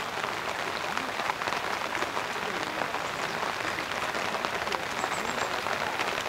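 Steady rain falling, a dense patter of many small drops.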